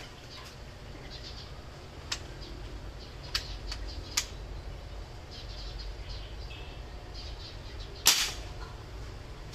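PCP air rifle firing a single shot just after eight seconds in: a sharp crack, the loudest sound here. Fainter clicks come in the first half, and birds chirp throughout.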